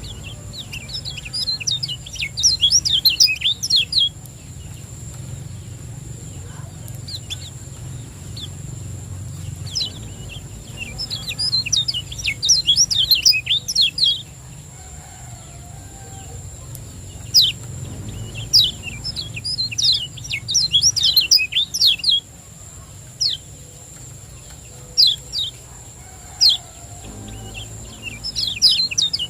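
Kecial kuning white-eye singing: fast bursts of high, quick chirps lasting a few seconds each, three times, with single sharp chirps in between.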